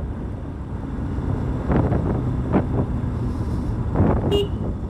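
Motorcycle engine running steadily on the move, with wind on the microphone. A short horn toot comes about four seconds in.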